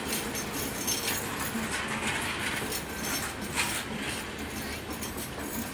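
Bangladesh Railway intercity passenger coaches rolling past close by, their wheels clattering and clinking over the rail joints as a steady rumble.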